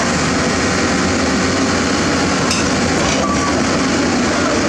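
Heavy diesel engines of a Doosan DX200LCA excavator and a self-loader truck running hard in a loud, steady drone, the truck labouring uphill under the weight of an excavator on its deck. A single sharp knock about halfway through.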